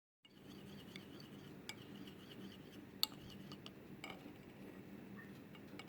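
Faint clinks and taps of cutlery and glassware, with one sharper clink about three seconds in, over a low steady hum.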